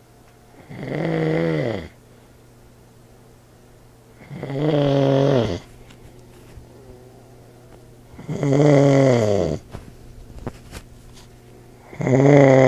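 An old man snoring loudly, four snores about every three and a half seconds, each lasting about a second and dropping in pitch as it ends, over a steady low hum.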